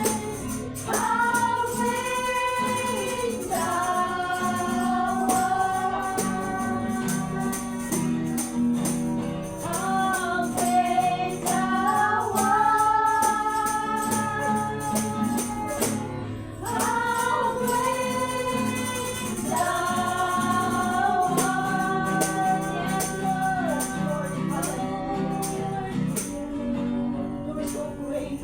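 Worship song sung by voices in long held notes over instrumental accompaniment, with a tambourine shaking along.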